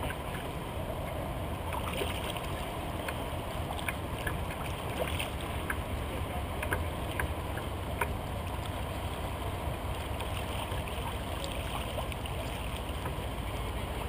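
Choppy river water lapping and splashing against a kayak's hull, with scattered small sharp splashes and drips over a low, steady rumble.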